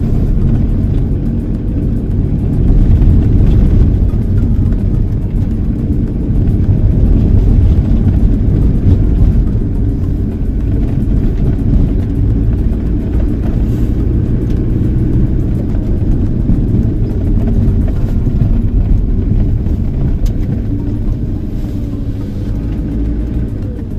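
Cabin sound of a 1990s VW T4 Caravelle van being driven: engine running with a steady low road and tyre rumble heard from inside, growing louder for a few seconds at a time.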